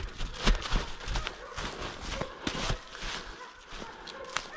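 Footsteps crunching and rustling through dry fallen leaves on a forest path, a few steps a second, growing quieter in the second half.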